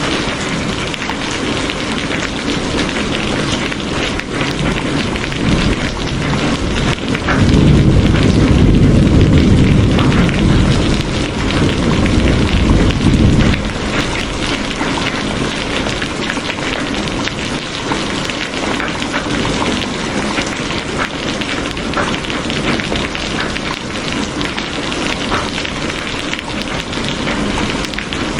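Steady rain falling, with a low roll of thunder that swells about seven seconds in and rumbles for around six seconds before fading back under the rain.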